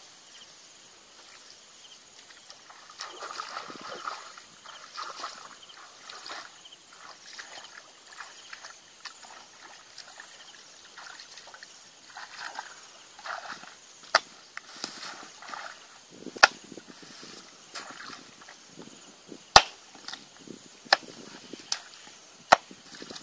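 Muddy water sloshing and splashing as a person wades through a shallow flooded ditch, then several sharp, loud knocks in the second half as a hoe strikes the bank.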